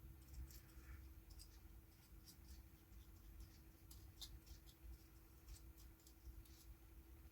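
Near silence with faint, scattered scratches and light ticks: a rubber cement brush being dabbed and worked over the bellows, with a faint steady hum.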